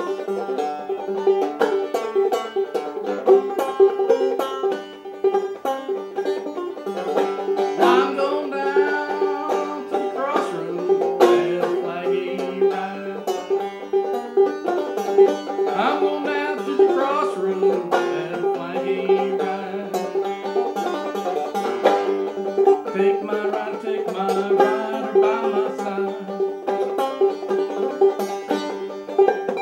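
Five-string banjo played solo in a knock-down, clawhammer-like downstroke style: quick, bright plucked notes in a driving rhythm, with a steady drone note held under the melody.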